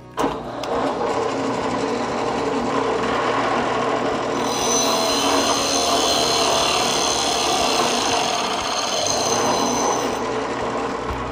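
Bench drill press boring a 70 mm hole in very hard sucupira wood: the motor and bit run steadily under load, starting with a sudden knock. A high whistling tone rides over the cutting noise from about four and a half seconds in until about ten seconds in. The hard wood makes the bit labour and heat up.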